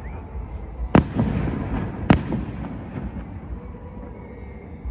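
Fireworks bursting: two sharp bangs about a second apart, each followed by a rumbling echo and faint crackle, then a quieter stretch.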